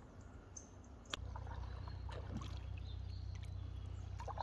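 Canoe paddle strokes and water moving along the hull, under a steady low rumble that steps up with a sharp click about a second in.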